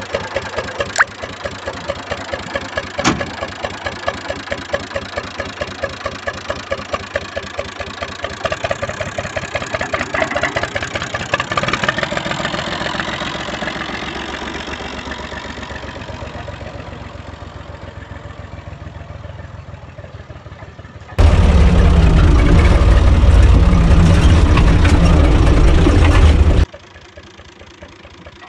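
Universal U445 tractor's diesel engine running with a steady rhythmic clatter that slowly fades. About three quarters of the way through, a much louder deep rumble cuts in for about five seconds and stops abruptly.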